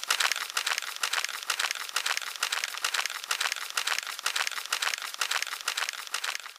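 Dense crackling, crinkling noise made of many fine rapid clicks, high and hissy with almost no low end. It starts suddenly and cuts off abruptly near the end.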